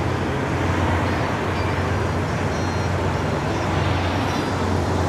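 Steady low hum of an idling engine with outdoor background noise.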